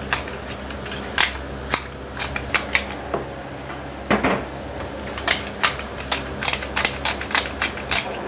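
Irregular sharp clicks and knocks of a wooden spoon against a stainless steel pot as thick cornmeal soup is stirred.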